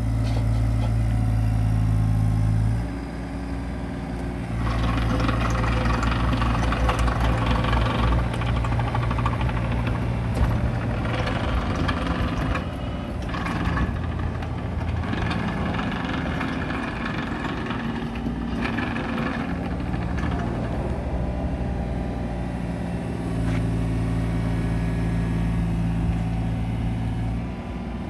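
Doosan DX27z mini excavator running under an operator's control, its diesel engine steady but rising and falling in speed and load as the machine is tracked and its arm moved. Louder for the first few seconds, dropping briefly, then picking up again with added mechanical and hydraulic noise.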